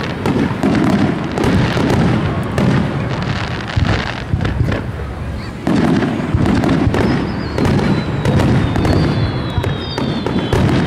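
Aerial firework shells bursting one after another in a dense run of bangs and crackle, growing heavier about six seconds in. A thin high whistle glides slowly downward near the end.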